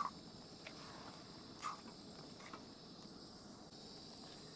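Steel ladle scraping against a steel kadai a few times, short sharp strokes, as frying chicken curry masala is stirred. Under it runs the steady high-pitched chirring of crickets.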